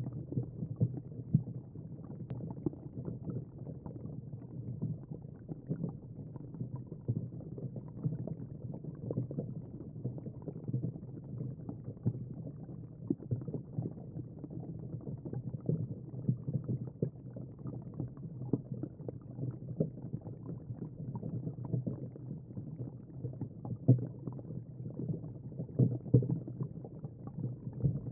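Underwater ambience heard muffled through a GoPro's waterproof housing: a low, steady rumble of water with many small, irregular crackles and knocks.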